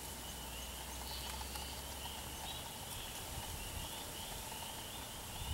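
Woodland ambience: a distant chorus of short, high chirps repeating every half second or so, over a faint low rumble that fades out about three seconds in.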